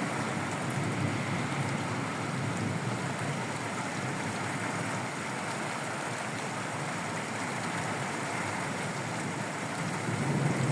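Steady rain falling, an even hiss with no separate hail strikes.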